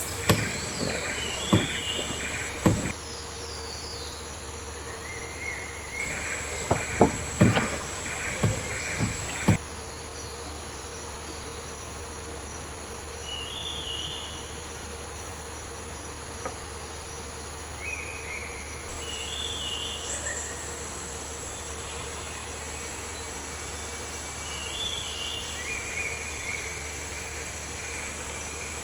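Tropical rainforest ambience: a steady high-pitched insect drone with short chirping calls every few seconds. A scatter of sharp knocks and thumps comes in the first ten seconds.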